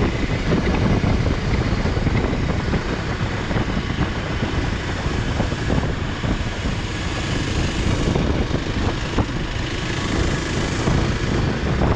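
Motorcycle under way: its engine runs under steady, loud wind rush on the microphone.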